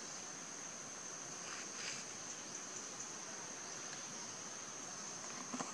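Steady, high-pitched insect drone, with faint brief calls about two seconds in and a couple of sharp clicks near the end.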